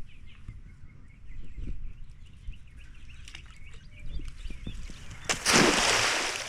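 Birds chirping faintly, then about five seconds in a cast net lands on the water with a loud splash lasting about a second.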